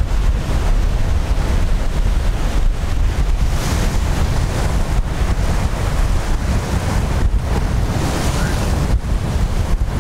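Wind buffeting the microphone, a loud, gusty low rumble, over the wash of surf against the jetty rocks.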